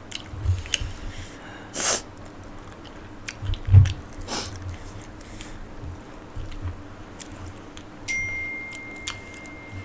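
People eating spicy instant noodles: mouth noises of chewing and biting with scattered clicks and two short hissy sounds. Near the end a steady high tone begins.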